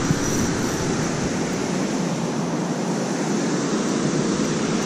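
Steady rush of water pouring through a spillway, an even noise with no breaks.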